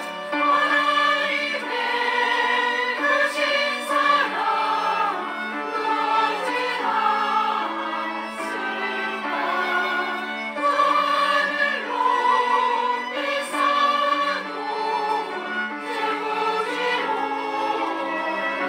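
Choir singing a hymn in several parts, in slow, long-held chords.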